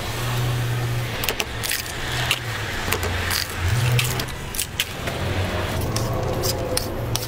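A steady low motor hum, its pitch shifting slightly in small steps, with many scattered sharp clicks and taps.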